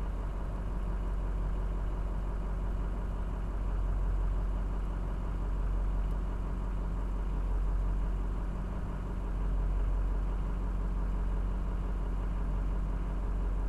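Diesel pickup truck engine idling, a steady low hum heard from inside the cab.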